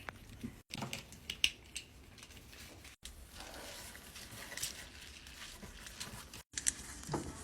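Faint handling sounds of a Tangle fidget toy being taken out of its plastic packaging: scattered small clicks and soft rustles.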